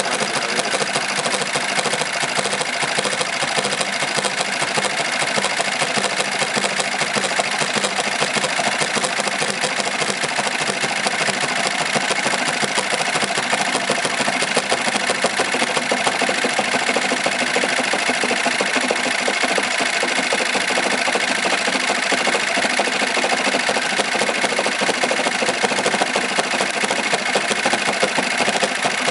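Industrial automatic pattern sewing machine running continuously, stitching out a logo with a fast, even needle rhythm and no pauses.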